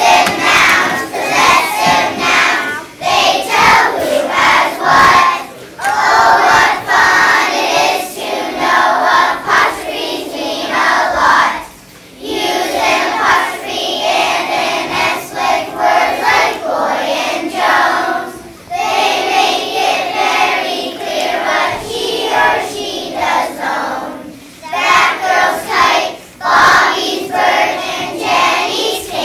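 A choir of young children singing together, in phrases broken by brief pauses.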